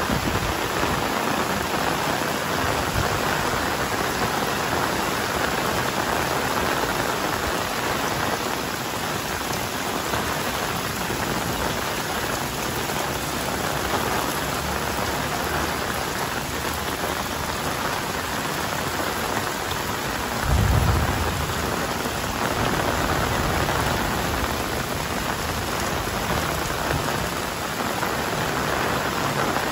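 Heavy rain falling steadily, an even hiss with no break. About two-thirds of the way through, a brief low rumble lasts about a second.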